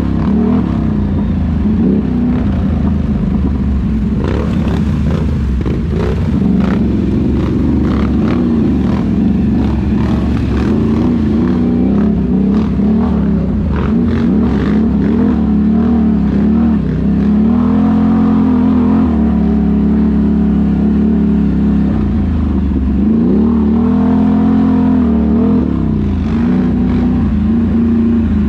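ATV engine running as it rides, its pitch rising and falling with the throttle. Scattered short knocks and rattles through the first half.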